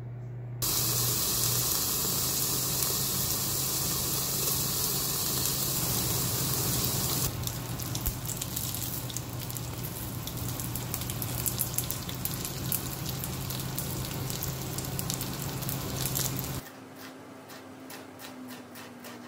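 Dumplings pan-frying in a skillet: a loud steady hiss for several seconds, then a crackling sizzle with many pops over a steady low hum. Near the end the sizzle cuts off and a knife taps lightly on a plastic cutting board as a red pepper is sliced.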